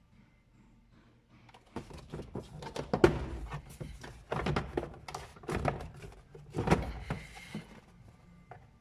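A series of knocks, thunks and clicks of hands working the car's plastic interior trim, the loudest about three seconds in, then tapering off near the end.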